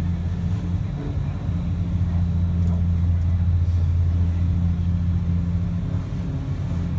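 Boat engine running with a steady low drone, heard on board a vessel cruising on the water.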